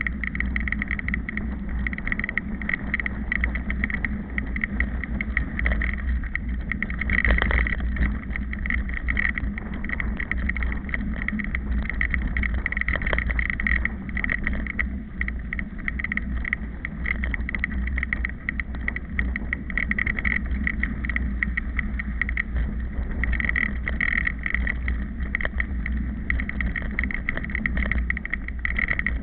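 Mountain bike riding a sandy dirt track, heard through a camera mounted on the bike: wind rumbling on the microphone over constant rattling and crunching from the frame and tyres, with a louder bump about seven seconds in.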